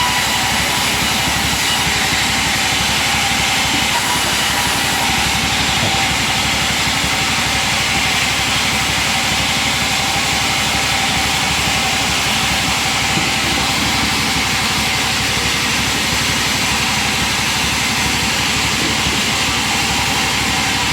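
A machine running steadily, a constant loud hiss with a steady hum underneath and no change in speed.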